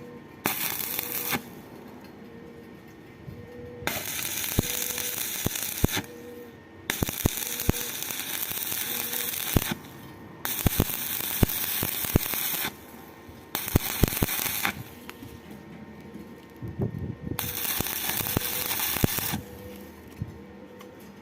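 Arc welding with a stick electrode: the arc crackles and hisses in six bursts of one to three seconds each, with sharp clicks in between.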